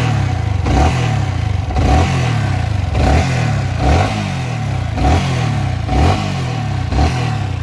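Yamaha R15 V3's single-cylinder engine blipped about once a second, eight times, the revs rising sharply and falling back each time. The owner is demonstrating a vibration-type noise that he takes for a loose tappet (valve clearance) adjustment.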